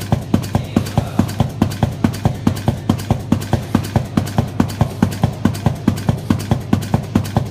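Knife paper pleating machine running at speed: the pleating knife strikes in a fast, even rhythm of about four strokes a second, over a steady motor hum.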